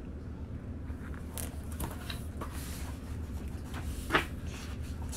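Paper pages of a large picture book being handled and turned, giving several short rustles and flaps, the loudest about four seconds in. A steady low hum runs underneath.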